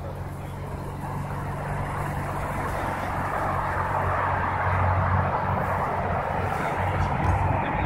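Steady vehicle engine noise with a low hum underneath, growing slowly louder.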